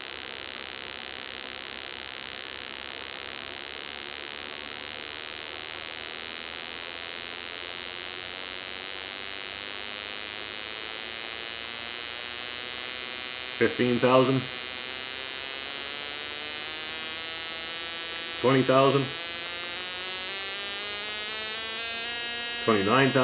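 Honda CBR125R performance-pack ignition firing a spark plug on a test rig: a steady electric buzz that climbs slowly in pitch as the firing rate is wound up from about 8,000 RPM.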